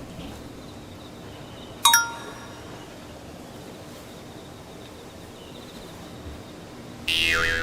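A single bright metallic ding about two seconds in that rings briefly and dies away. Near the end comes a louder sound that slides down in pitch.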